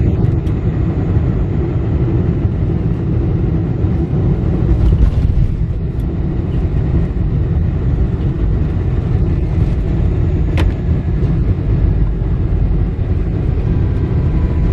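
Cabin noise of a Boeing 747-400 landing: a loud, steady low rumble as the jet touches down and rolls out along the runway with its spoilers raised. A single sharp click sounds about two-thirds of the way through.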